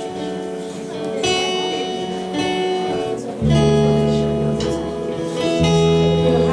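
Acoustic guitar strumming slow chords as background worship music, with deep bass notes joining about halfway through.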